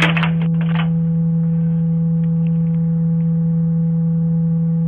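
Loud, steady electrical hum on one low note with faint higher overtones, picked up in a Ring video doorbell's audio. It sets in suddenly and does not waver. A few faint voice sounds come in the first second.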